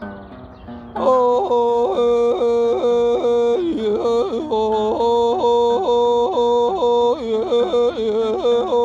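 Music: a loud singing voice comes in about a second in, leaping quickly up and down between a few notes in a yodel-like way over soft plucked-string accompaniment, and stops right at the end.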